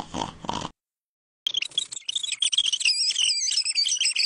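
A sleeping person's snore trails off and stops; after a short silence, a run of high-pitched, fast-wavering squeaks and chirps starts and carries on.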